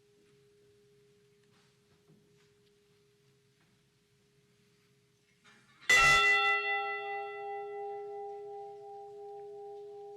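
A bell struck once about six seconds in, tolled for one of the Edmund Fitzgerald's lost crew after his name is read. Its high overtones die away within a couple of seconds while the lower tones ring on with a slow waver; before the strike, the faint hum of the previous toll fades out.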